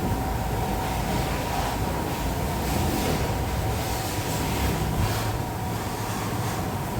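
Pressure washer running steadily at a bike wash, its water jet hissing in short spells.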